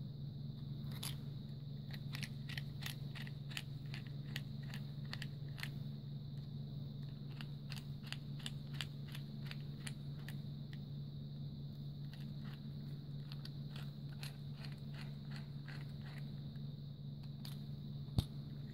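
Small Phillips screwdriver turning tiny screws into a plastic butane torch lighter housing: a long run of light, quick clicks, about three or four a second, with one sharper click near the end, over a steady low hum.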